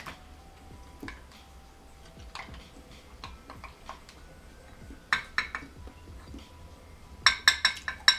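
Light clicks and clinks of shellfish shells and a utensil against ceramic and glass dishes, with a cluster of sharper clinks about five seconds in and a faster run of them near the end.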